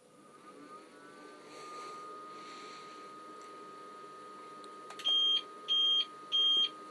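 APC 1500 UPS running on battery with its mains input switched off. A faint high whine rises slightly and then holds steady, and near the end the on-battery alarm gives three short beeps about two-thirds of a second apart. This is the sign that the UPS has transferred to battery power.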